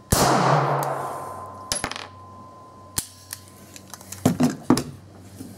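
A single shot from a Boberg XR9-S 9mm pistol, ringing on under a metal range roof. Light metallic clinks follow, then a few sharper metallic clacks about four seconds in.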